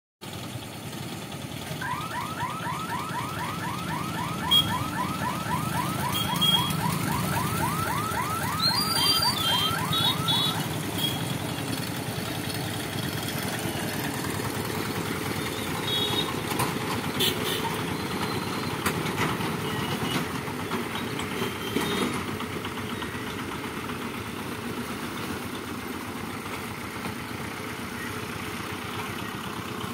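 Small engines of motorcycles, auto-rickshaws and a pickup truck running as they cross a railway level crossing, with a few short high beeps. For about eight seconds near the start, an electronic alarm warbles rapidly, about four rising chirps a second.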